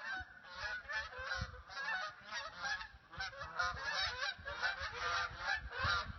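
A flock of geese honking in flight, many calls overlapping continuously.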